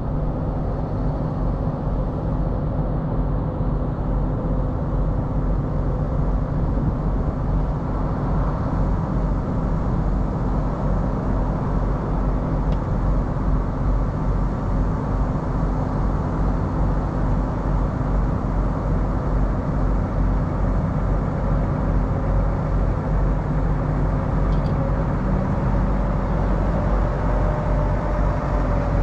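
A heavy diesel truck engine idling steadily, a low even hum.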